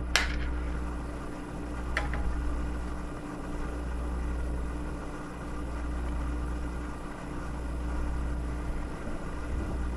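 A steady low hum with a faint higher steady tone beneath it, and two light clicks of small parts or tools being handled, one at the very start and one about two seconds in.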